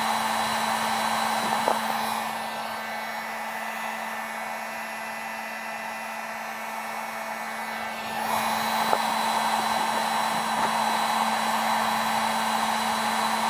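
Drillmaster heat gun running steadily, its fan blowing hot air with a constant hum under the rush. The sound drops for several seconds from about two seconds in, then comes back up near eight seconds.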